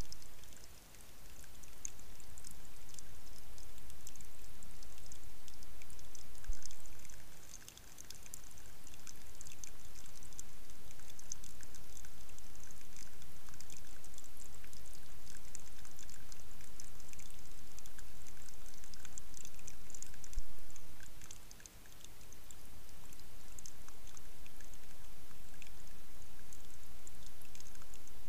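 Steady trickle of water at a beaver dam, with a flicker of small splashes. It drops away briefly three times and fades back in.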